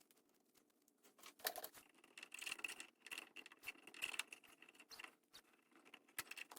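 Faint scratchy rubbing as a small cassette-deck part is wiped clean of rubber residue. For a few seconds near the middle the wiping gives a thin, high squeak.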